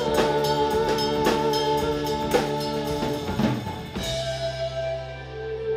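Live rock band playing an instrumental passage: drum kit strokes and cymbals over held keyboard chords and bass. About four seconds in, the drums stop and only the sustained keyboard chords ring on.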